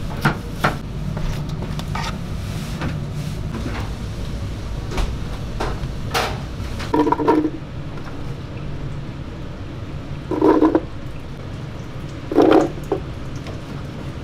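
Chef's knife cutting through carrots on a plastic cutting board for a moment at the start, then carrot chunks dropped into a plastic blender jar with hollow thuds, three times, over a steady kitchen hum.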